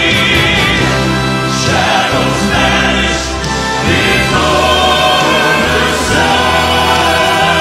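Southern gospel male vocal quartet singing in close harmony, backed by a live band with piano, drums and guitar.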